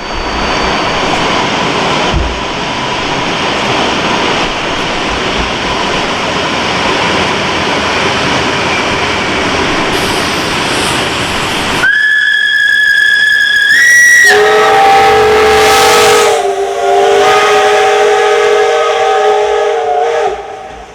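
Steam locomotive: a steady rushing hiss of steam, then a high single-note steam whistle blast of about two seconds that steps up in pitch at its end, followed at once by a lower, several-note whistle held for about six seconds that stops shortly before the end.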